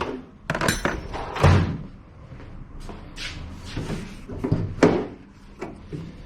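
A series of sharp knocks and short clatters from tools and parts being handled while working on a car, the loudest about a second and a half in.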